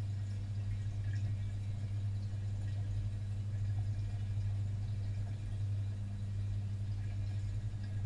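Steady low hum of an aquarium filter pump running in a fish tank, with faint water sounds over it.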